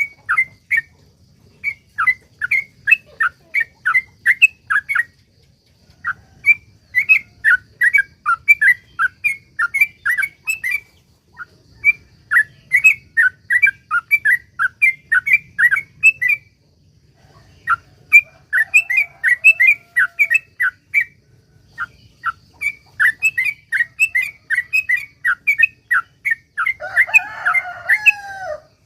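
Yellow-vented bulbul (trucukan) singing its long rapid-fire song: fast runs of sharp, bubbling notes in phrases of several seconds, broken by short pauses. Near the end a brief, denser, lower chattering call joins in.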